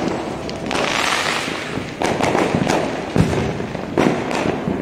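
Fireworks going off in quick succession: a run of bangs and crackles from aerial shells and rockets bursting, the loudest bang a little past three seconds in.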